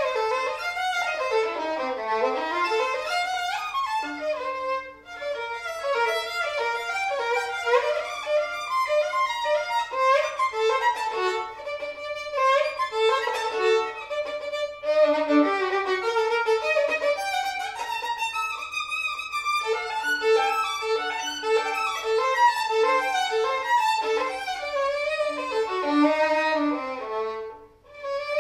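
Violin playing an étude in fast running passages of short notes, dipping down to the bottom of its range about two seconds in. There is a brief break about five seconds in and a pause near the end.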